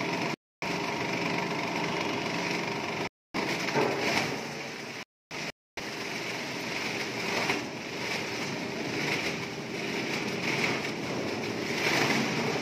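Depackaging machine running steadily, driven through its side pulley, churning expired biscuit and chip packets to separate the food from the plastic wrappers. The sound cuts out briefly a few times in the first six seconds.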